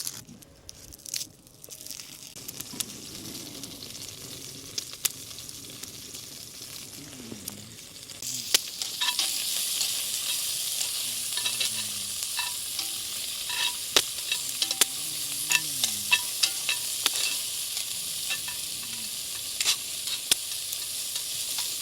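Spare ribs sizzling in a cast-iron Dutch oven, with frequent sharp pops. The sizzle is faint at first, then grows much louder about a third of the way in and stays steady.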